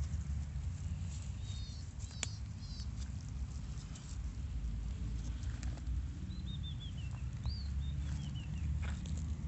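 Low, uneven rumbling of a horse's stomach growling, with a sharp click about two seconds in. A small bird twitters in two runs of short falling chirps.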